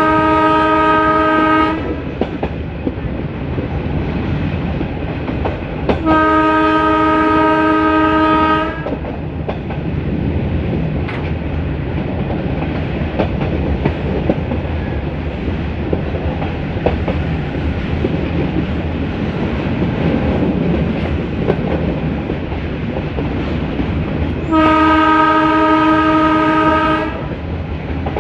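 YDM4 diesel locomotive's air horn sounding three long, steady blasts of about two seconds each: near the start, about six seconds in, and near the end. Between the blasts the metre-gauge train runs on with a steady rumble and the clickety-clack of wheels over rail joints.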